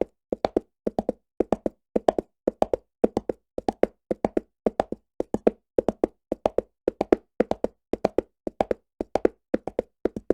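Horse hooves galloping on a hard surface: clusters of about three quick hoofbeats, repeating evenly at about two strides a second.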